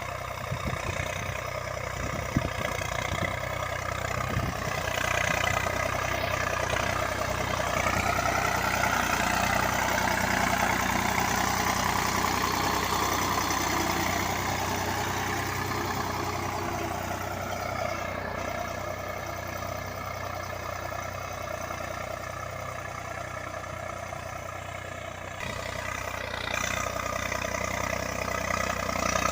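Eicher 485 tractor's three-cylinder diesel engine running steadily while ploughing. Its level swells through the middle, eases off, and picks up again near the end, with a few knocks about two seconds in.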